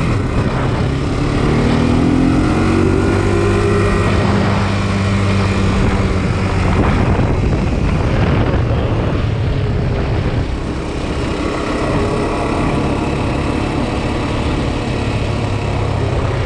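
Honda 400X quad's single-cylinder four-stroke engine running under way, its pitch rising about a second in as it speeds up, then holding steady.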